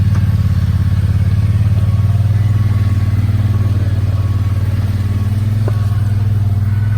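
Off-road vehicle engine running at a steady pitch, with a fast even pulse of firing strokes.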